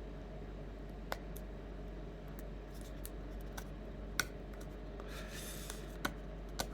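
Scattered small clicks and taps of a plastic dummy phone being handled, with a short scratchy rubbing a little past halfway as adhesive is picked at on the camera lenses.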